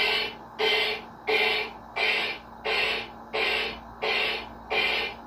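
Bop It Extreme handheld electronic toy playing its rhythmic beat through its small speaker: evenly spaced noisy hits, about three every two seconds, which stop near the end.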